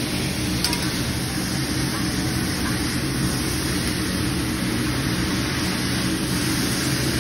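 Steady rushing noise with a low hum from the ventilation over a hibachi griddle, mixed with food sizzling on the hot griddle.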